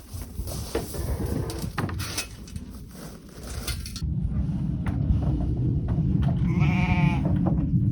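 A bleating farm animal gives one drawn-out call near the end. Before it there are scattered clicks and rustling, then, about halfway through, a steady low rumble.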